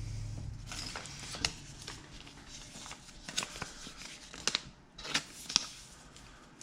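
Pokémon cards being handled and slid into plastic card sleeves: soft rustling with a scatter of light clicks.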